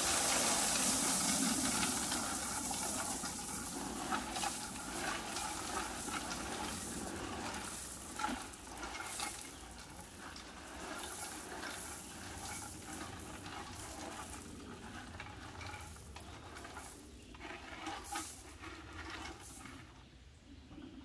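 Crushed-stone ballast pouring out of a hand-pushed miniature-railway hopper car onto the track: a rushing rattle that starts suddenly, is loudest for the first couple of seconds, then thins out, with stones clicking throughout.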